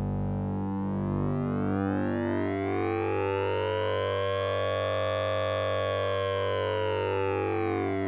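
Synthesized sync-and-ring-modulation tone from the Orange Vocoder plugin: a steady low buzz under a stack of bright overtones that sweeps slowly up over about four seconds and back down again, like a siren.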